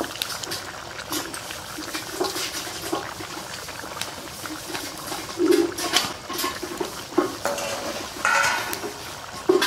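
Fried parshe fish going into a thick curry simmering in a wok: the gravy bubbles irregularly, with scattered clinks and knocks of utensils against the pan.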